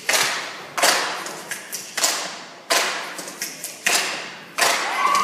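Sharp stomps and claps from a line of performers, echoing through a large hall at an uneven beat, about one or two a second. A few voices call out near the end.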